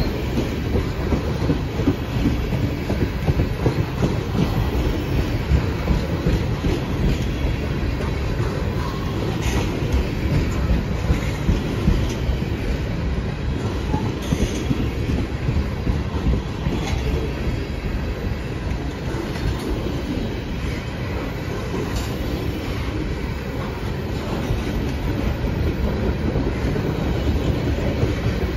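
Freight train of tank cars rolling past: a steady rumble of steel wheels on rail, with occasional light clicks.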